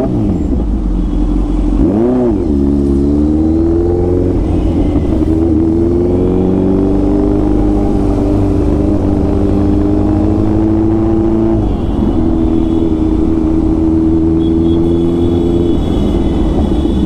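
Kawasaki Z900's inline-four engine under way, picked up by a helmet-mounted camera. There is a quick throttle blip about two seconds in, then the pitch climbs and holds steady, easing off briefly near twelve seconds in before pulling on again.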